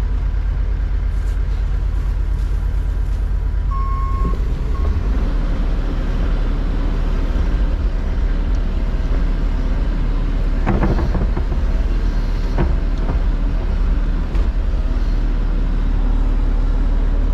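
Truck engine running steadily at a low rumble, with a short single beep about four seconds in and a few sharp knocks around eleven to thirteen seconds in.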